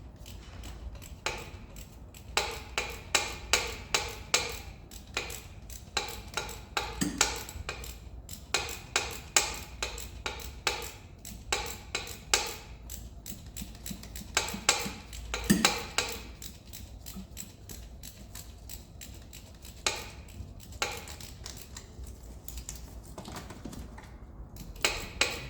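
Metal tools and lifting hardware clinking and clicking against the engine, in quick runs of sharp, ringing knocks, several a second. The knocks thin out in the last third.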